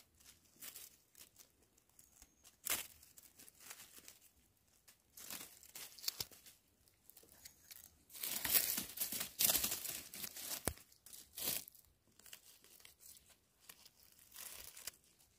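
Dry leaf litter, twigs and pine needles crackling and rustling in irregular bursts as gloved hands pick chanterelle mushrooms off the forest floor; the busiest stretch comes about eight to ten seconds in.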